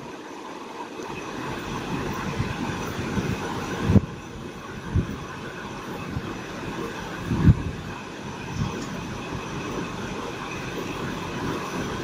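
Steady mechanical hum of a workshop, with a few dull low bumps.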